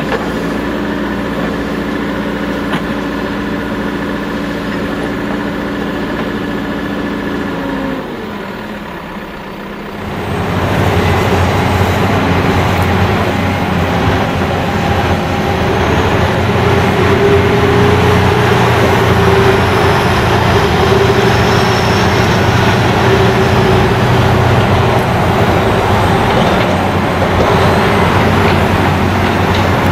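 Caterpillar 420E IT backhoe loader's diesel engine idling steadily, dipping briefly about eight seconds in, then revving up at about ten seconds to a louder, rougher running sound with a wavering whine over it.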